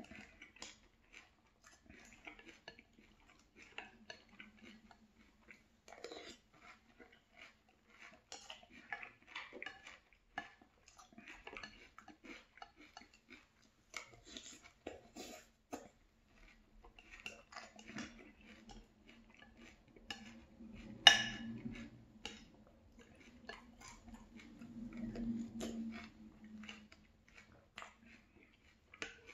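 A spoon scraping and clinking against a glass cereal bowl between mouthfuls of chewed Frosted Flakes in milk, with one sharp clink about two-thirds of the way through.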